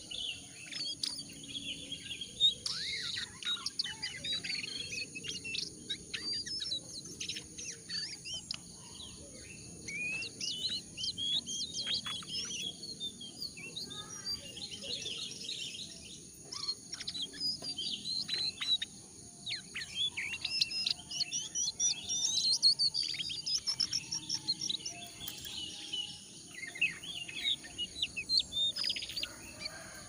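A jongkangan (Horsfield's babbler) calling in fast runs of harsh, scratchy high chirps with short pauses between them: the rough 'ngeriwik' chatter mixed with clear notes that is used as a lure call to set other jongkangan singing.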